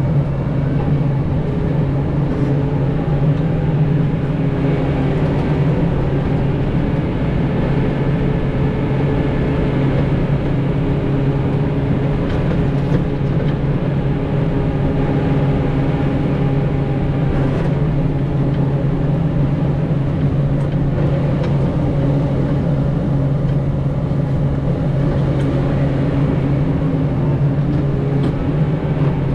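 Farm tractor engine running steadily at a constant pace, a loud, even drone with a few faint knocks over it.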